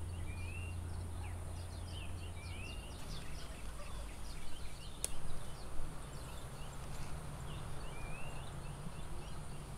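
Small birds chirping, with many short rising notes scattered throughout, over a steady low background noise; a single sharp click about five seconds in.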